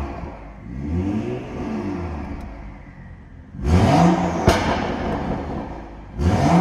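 BMW M235i's turbocharged 3.0-litre straight-six, stage 2 tuned with an aftermarket air intake and Milltek exhaust, blipped while parked. A smaller rev rises and falls about a second in, then a sharp rev near the middle falls back with a single crack from the exhaust, and another sharp rev starts near the end.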